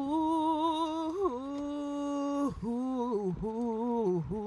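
A singing voice holding long, wordless notes with vibrato. It steps down in pitch about a second in and breaks off briefly twice near the end.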